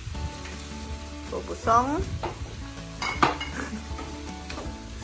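Food sizzling in a hot wok while a wooden spatula stirs it, with knocks of the spatula against the pan, the sharpest a little after three seconds in. A short gliding pitched sound rises and falls about two seconds in.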